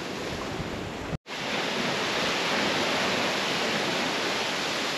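Ocean surf washing over shoreline rocks: a steady rush of water, broken by a momentary gap about a second in.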